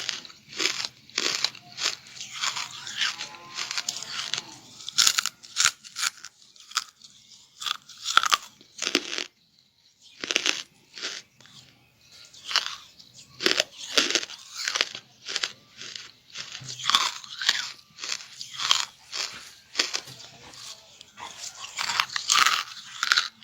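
Close-up crunching of a person biting and chewing charcoal: a dense run of sharp, crisp crunches several times a second, with a short pause about ten seconds in.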